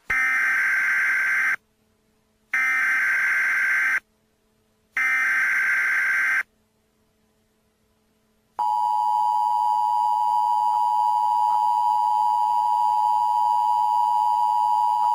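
Emergency Alert System header: three bursts of SAME digital data tones, each about one and a half seconds long with short silent gaps between them. About two seconds after the last burst, the steady two-tone EAS attention signal starts and keeps sounding.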